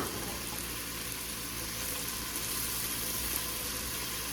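Chicken cooking in curry in a pot, sizzling steadily.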